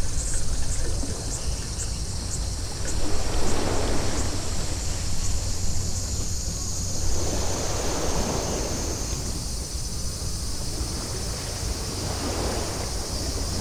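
Small waves washing up on a sandy shore, swelling and falling back about every four seconds, over a steady low wind rumble on the microphone.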